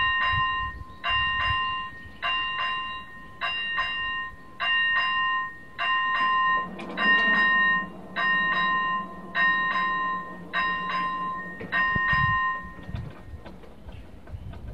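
Railway level-crossing warning bell ringing in even strokes, about one every 1.2 seconds, signalling that a train is approaching. It stops about 13 seconds in.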